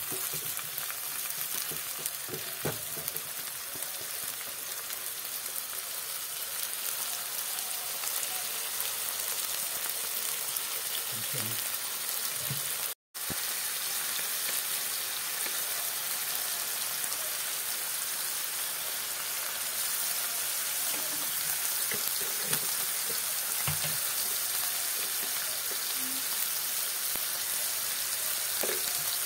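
Chopped vegetables sizzling as they fry in a pan, a steady hiss with a few soft scrapes of a wooden spatula stirring them. The sound drops out for a moment about halfway through.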